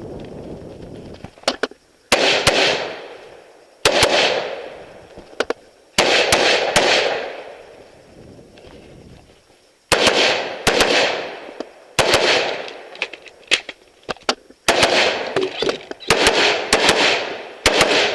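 AR-15 rifle in .223/5.56 fired in a string of single shots, sometimes in quick pairs, every second or two, each shot trailing off in a long echo. There is a pause of a few seconds midway before the firing picks up again.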